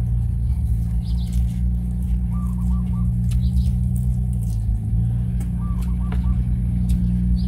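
A steady low rumble runs throughout. Over it, a bird call of three or four quick notes repeats every few seconds, with scattered small clicks from handling and eating leafy food.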